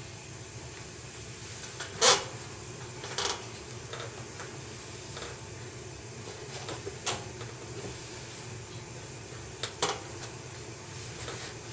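Knocks and rustles of Caterpillar leather work boots being picked up, turned over and set down, the loudest knock about two seconds in and a quick pair near the end, over a steady low hum.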